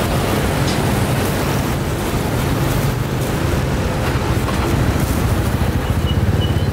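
A steady low engine rumble, like a vehicle idling close by, over general street noise.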